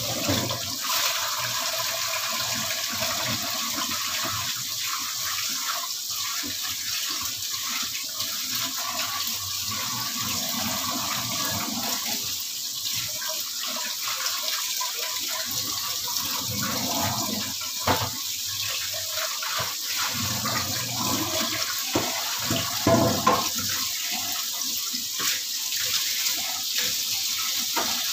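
Flour-dusted red snapper heads frying in hot oil in a wok: a steady sizzle with scattered sharp pops and crackles.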